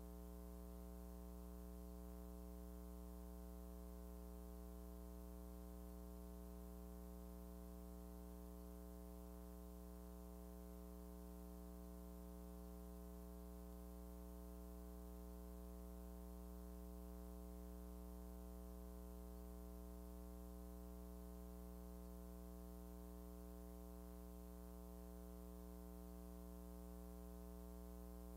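Faint, steady electrical hum with its overtones on an otherwise silent soundtrack, unchanging throughout.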